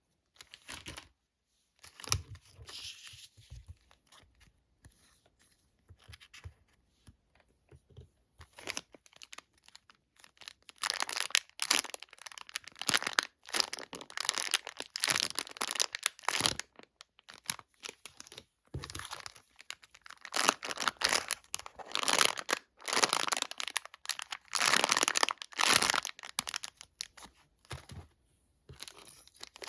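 Plastic packaging crinkling and being torn open by hand, in irregular rustling bursts with short pauses, the busiest stretches in the middle and toward the end.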